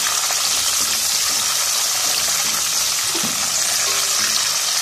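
Fennel seeds, coconut, raisins and almonds sizzling in hot ghee in a steel pot while a silicone spatula stirs them: a steady frying hiss.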